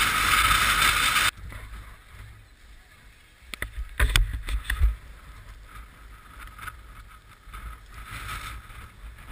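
Loud wind hiss and buffeting on a helmet-mounted GoPro, cutting off suddenly about a second in. Then a quieter hiss of skis sliding on snow, with a few sharp clicks and low knocks around four seconds in.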